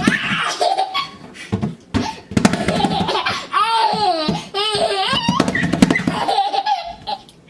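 A baby laughing in several bursts, the strongest a run of high, wavering giggles in the middle.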